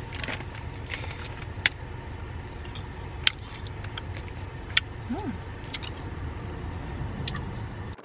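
Steady low road and engine rumble inside a moving car's cabin, with a few sharp clicks and small crackles over it, the loudest three about a second and a half apart.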